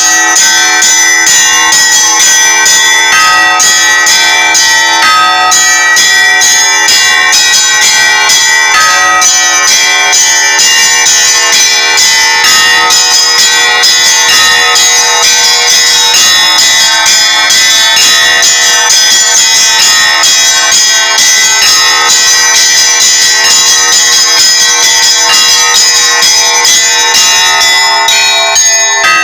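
Russian Orthodox church bells ringing a continuous festive peal for the feast of the Ascension. Small bells are struck in quick succession over the steady ring of larger bells.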